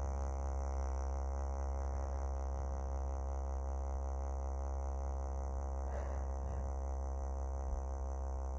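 Small vibrator held against the outside of the nose, its motor buzzing with a steady, even low drone.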